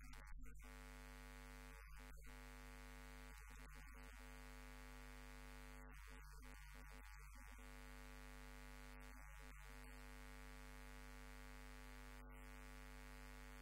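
Near silence with a faint, steady electrical hum or buzz made of many evenly spaced overtones.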